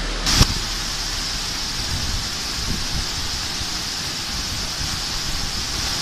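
Steady rushing of a large waterfall: an even, dense hiss with a low rumble underneath. A sharp click comes about half a second in.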